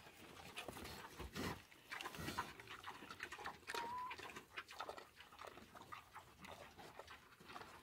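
Pig eating cassava peels off the ground: faint, irregular crunching and chewing clicks. A brief faint chirp comes about four seconds in.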